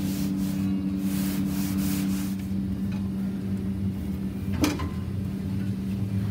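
A pad rubbing and scrubbing bare sheet-metal cab roof, several strokes over the first two seconds or so, over a steady low hum. A single sharp knock about four and a half seconds in.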